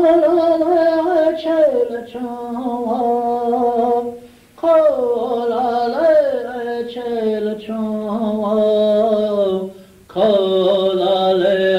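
An unaccompanied voice chanting a Lakota-style song in three long phrases, each starting high and stepping down in pitch, with short breaks between them. It is heard through an old consumer cassette recording.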